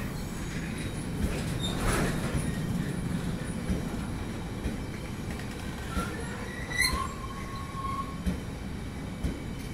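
Loaded car-carrier freight wagons rolling slowly past as the train pulls away from a stop: a steady low rumble of wheels on rail with scattered clanks, and a short wheel squeal that rises and then holds for about a second, around seven seconds in.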